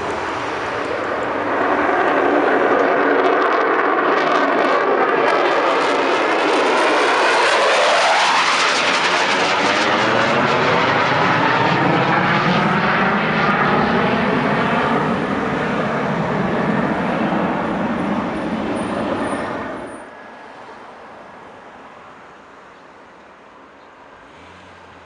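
Military fighter jet taking off and passing by: loud jet engine noise that swells about two seconds in, with a sweeping whoosh as it goes past, then cuts off abruptly near the end, leaving only a faint distant rumble.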